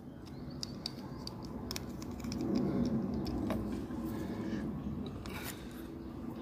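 Light clicks and scrapes of plastic and metal as the plastic interior is worked loose from a diecast toy car's body by hand, over a low rumble that gets louder about halfway through.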